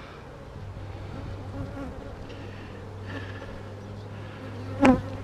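Honeybees buzzing steadily in a dense crowd around an opened hive, with one sharp knock near the end.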